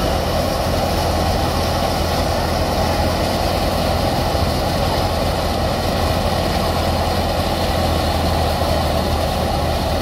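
Tractor-driven wheat thresher running steadily while bundles of wheat are fed into it: a continuous loud mechanical drone from the threshing drum, with the Massey Ferguson 385's diesel engine running under load beneath it.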